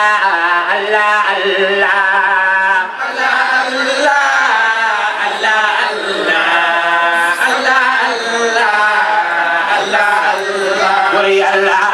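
Voices chanting a devotional song together, unbroken melodic lines that waver and overlap, with no pause.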